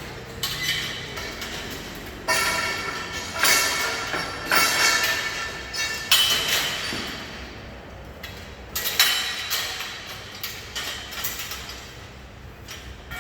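Metal parts, likely steel scaffolding pieces, clanking and ringing as they are knocked apart and handled: a string of irregular strikes, each leaving a ringing tone.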